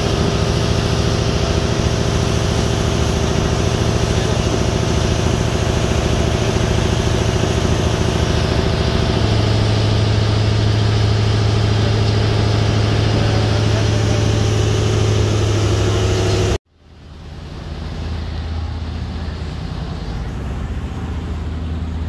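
Bumboat's engine running steadily under way, with the rush of its wake and wind. Its low hum grows louder about nine seconds in. A few seconds before the end the sound cuts off abruptly and a quieter, steady sound fades back in.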